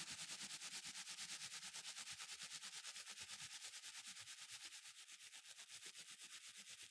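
Rapid, even rubbing on the rear window glass, about ten strokes a second, as old double-sided tape adhesive is worked off by hand without a razor blade. Faint, and easing off slightly toward the end.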